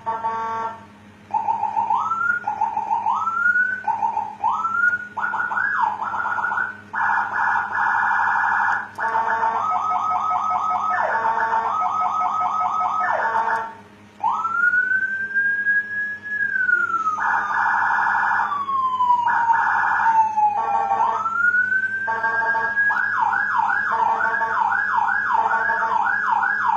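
Electronic police-escort siren module cycling through its tones. It starts with a series of short rising whoops, then pulsing steady tones, then a slow wail that climbs and falls, and a fast yelp near the end. A steady low hum runs underneath.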